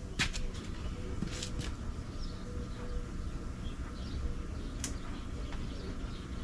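Small electric fuel pump (Edelbrock micro pump) running with a steady hum, moving gasoline from the reserve tank into the main tank; a few sharp clicks of handling fall over it.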